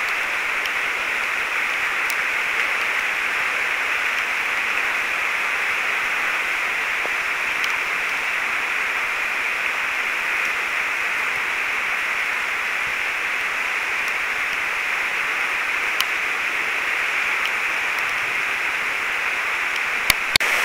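Steady rush of a waterfall pouring into a river pool, with the river running fast after rain. A couple of brief knocks near the end.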